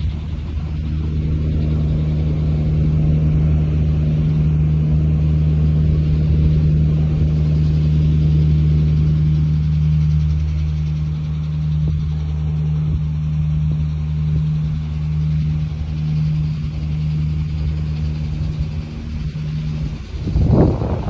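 A steady low mechanical hum runs unchanged for about twenty seconds. Near the end, loud rushing noise breaks in and the hum fades.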